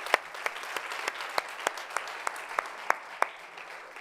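Congregation applauding, with one person's claps standing out sharp and close about three times a second. The applause fades away toward the end.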